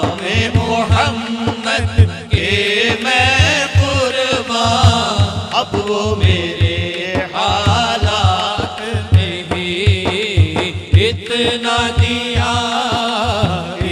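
Naat sung by a male voice through a microphone and PA, a wavering, ornamented melody, over a steady, fast, low pulsing beat.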